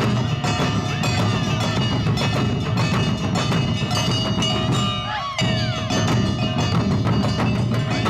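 Live Awa odori festival music from a marching band of drums and a ringing, clanging kane bell, with high gliding notes over the top. The drums drop out for a moment about five seconds in.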